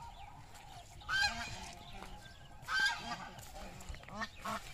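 Domestic geese honking: two loud honks about a second and about three seconds in, then a few quieter calls near the end.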